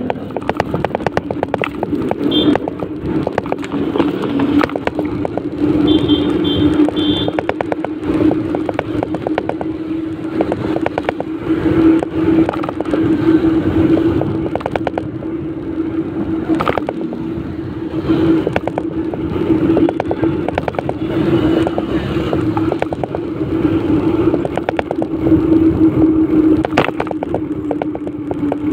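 Riding noise of a two-wheeler on a wet street: a steady hum with a rough rattle. A few short, faint high beeps sound about two seconds in and again around six to seven seconds.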